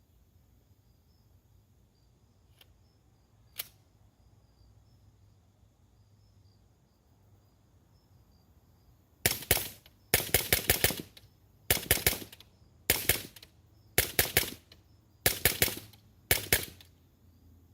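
An AR-style .22 LR rifle with a Griffin Optimus suppressor firing subsonic rounds: a rapid string of suppressed shots in about seven short groups, with a single sharp click a few seconds before the shooting starts. Crickets chirp faintly in the background.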